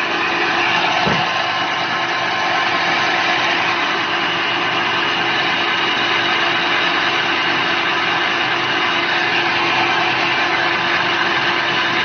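Small feed pellet mill running steadily, a continuous mechanical hum with steady tones as it presses mash into pellets. A brief low thud comes about a second in.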